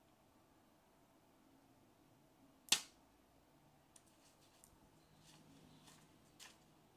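Packaging handled by hand: one sharp snap a little under three seconds in, then a few faint crinkles and clicks of a clear plastic bag around the speaker, the last a little louder near the end.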